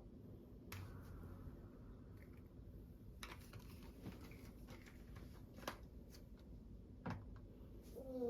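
Faint, scattered clicks and light taps of kitchen utensils and containers being handled over a low steady hum, with a brief voice-like sound falling in pitch near the end.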